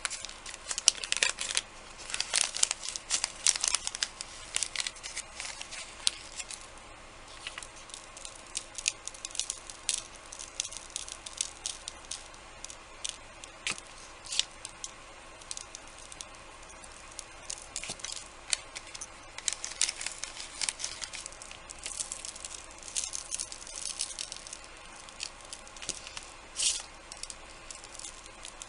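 Light crinkling and rustling of craft paper being handled and torn, in short irregular bursts with scattered small ticks and taps, busiest near the start and again about two-thirds of the way through.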